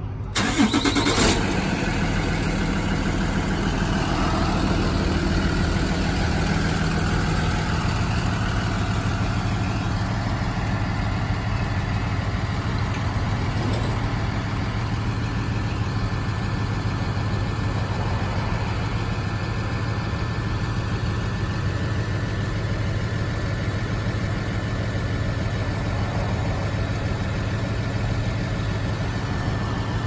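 The engine of a 2016 Blue Bird Vision school bus cranks and catches about half a second in, with a short clatter. It then settles into a steady idle.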